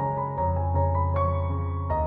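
Background music: a soft piano melody playing steady notes over held bass tones.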